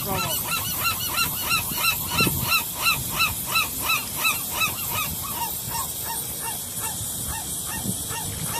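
A gull calling a long series of yelping notes that each rise and fall, about three a second, growing fainter after about five seconds.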